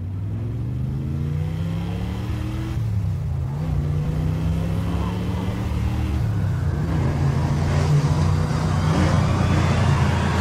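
Low rumbling drone with a few rising glides, building steadily in loudness with a hiss that swells toward the end, then cutting off suddenly: an edited-in sound effect that sounds like an engine revving.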